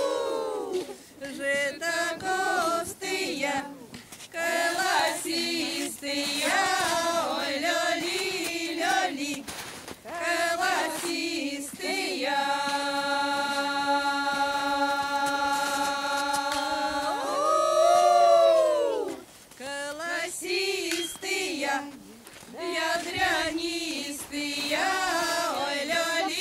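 Women's folk choir singing a Russian spring-calling song (vesnyanka) unaccompanied. Near the middle the voices hold one long note together, then rise and fall in a high call before the singing goes on.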